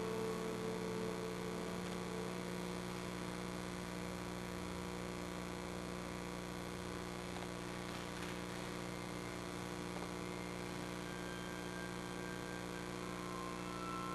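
Steady electrical mains hum in the recording. A held musical tone fades out in the first two seconds, and a few faint high held tones come in near the end.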